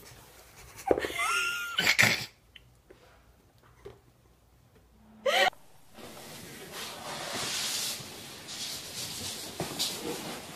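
Short high vocal sounds with a gliding pitch about a second in and again near the middle, then a soft, steady brushing of a push broom's bristles swept over a wood floor.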